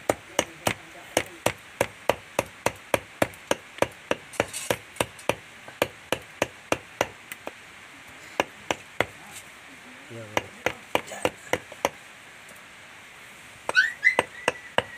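Knife chopping boiled Muscovy duck meat on a wooden chopping block, with quick, even chops about three a second. The chopping pauses briefly about halfway and stops a few seconds before the end. Near the end a short high tone rises and then holds.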